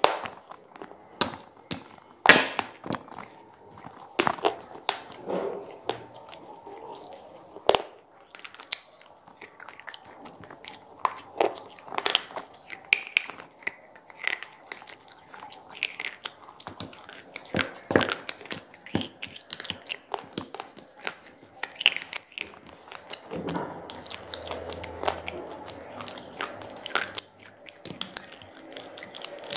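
Square pieces of slate being bitten and chewed: irregular sharp, gritty crunches as the stone snaps and grinds between the teeth.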